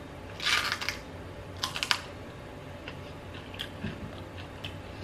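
Mouth crunching through a raw Brussels sprout as it is bitten and chewed: two loud crunches in the first two seconds, then softer, scattered chewing crunches.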